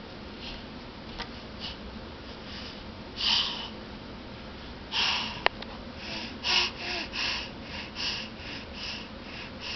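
A nine-month-old baby making short breathy puffs: one a little past three seconds in, another about halfway, then a quick run of them, more than one a second, through the second half. A single sharp click comes shortly after the midpoint.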